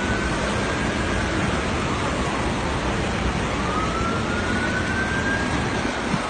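A siren wailing slowly up and down, two long rise-and-fall cycles, faint behind a loud, steady rushing noise.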